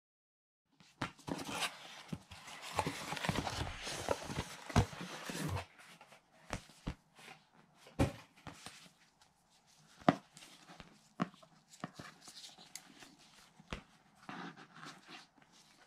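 A cardboard product box handled by hands in nitrile gloves. Starting about a second in there are about five seconds of rustling and scraping, then a string of separate sharp taps and clicks, with a short rustle near the end.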